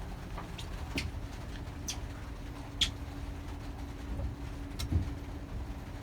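A few scattered sharp clicks and scrapes of a knife blade scraping the contact pins of a Land Rover KVM module clean to restore poor pin contact, over a faint steady hum that comes in about halfway.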